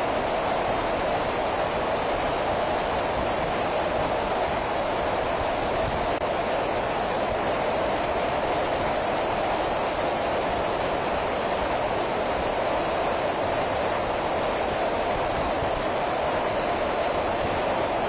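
Steady, unchanging rushing drone of jet aircraft in flight, engine and airflow noise heard aboard the filming aircraft, with no breaks or changes.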